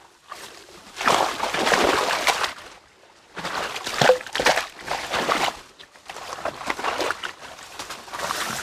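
Water sloshing and water hyacinth rustling as people wade slowly through a plant-choked canal, in three long surges with short pauses between.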